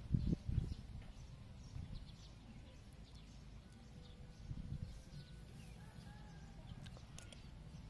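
Faint rural outdoor background: a steady low rumble with a few faint bird chirps in the second half, after a few soft low thuds in the first second.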